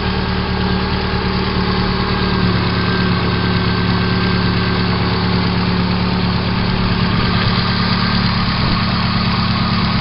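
VAZ-2112 engine idling steadily with a knock from the cylinder head. The owner says the knock grows as the engine warms while oil pressure falls to about 1 kgf/cm² at hot idle, and new hydraulic lifters, oil and filter have not cured it.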